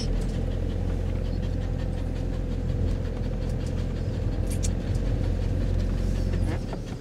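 Motorhome's engine and road noise heard inside the cab while driving: a steady low rumble that eases off slightly near the end.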